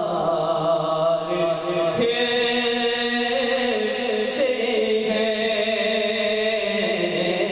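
A man singing a naat, a devotional Urdu song, into a microphone, holding long drawn-out notes that slide slowly up and down in pitch without pause.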